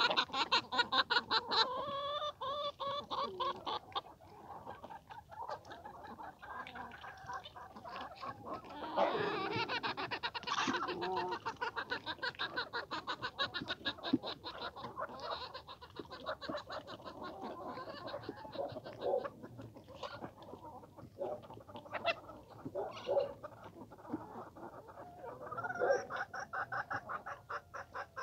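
A flock of free-range hens clucking continuously in rapid, pulsed runs of calls, with a louder, harsher call about nine seconds in.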